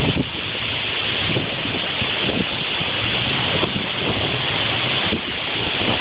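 Strong wind rushing steadily from a nearby EF4 tornado, with gusts buffeting the microphone in short low thumps.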